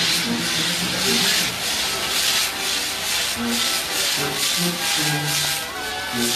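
Pyrotechnic castle (castillo) tower burning: a loud, steady hiss and crackle of spark fountains. Low brass-band notes sound beneath it in the second half.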